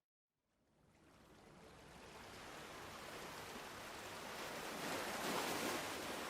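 Ocean surf: after a moment of silence at the start, the wash of the waves fades back in and builds to a breaking wave, loudest about five seconds in.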